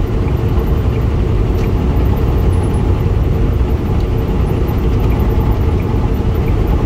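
Steady engine and road rumble inside a truck cab cruising at highway speed, about 70 mph.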